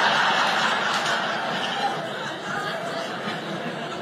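Audience laughing after a punchline, loudest at first and slowly dying down.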